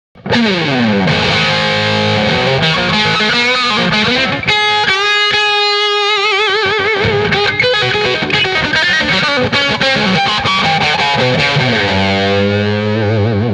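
Distorted electric guitar solo played through a SoloDallas Storm overdrive pedal: quick runs and slides, a long held note with wide vibrato about five seconds in, and a sliding bend into another vibrato note near the end.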